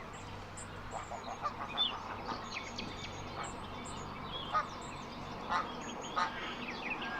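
Waterfowl at a bird park calling: a mix of short goose- and duck-like calls from several birds, scattered through, with small birds chirping high over them.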